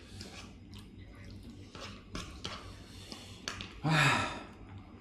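People eating at a table: faint clicks of spoons and forks on plates and some chewing, with a louder short breathy gasp from one of the eaters about four seconds in.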